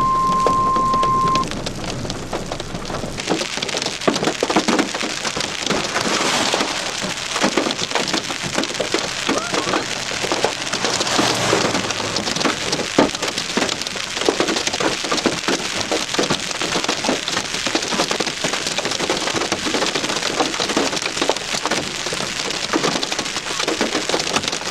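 A steady beep tone that stops after about a second and a half, then hail pelting a car's body and glass: a dense, continuous clatter of many small impacts, heavier in spells.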